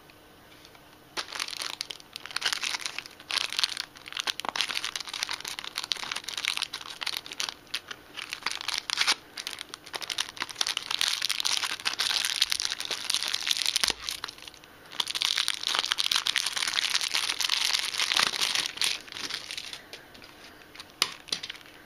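Clear plastic wrapper crinkling and rustling as hands work it open off a small cardboard toy box. The crackling runs almost without stop, with a short break partway through.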